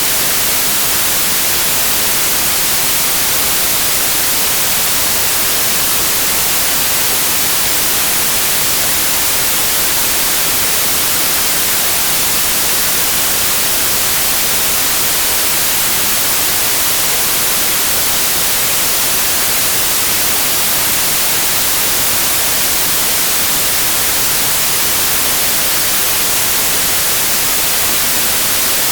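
Steady, loud synthetic white noise: an even hiss, strongest in the highs, that does not change at all.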